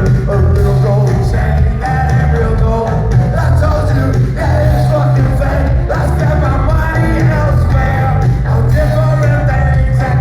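Live rock band playing loud, with bass, guitars and drums, recorded from the crowd at a concert.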